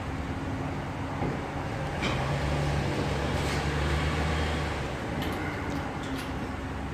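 A steady low machine hum that swells for a few seconds in the middle, with a few sharp clicks.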